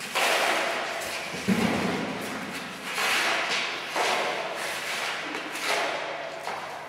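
Push brooms sweeping a hard floor and pushing crumpled paper and plastic litter along: about five sweeping strokes, each starting with a sudden thump and fading over about a second.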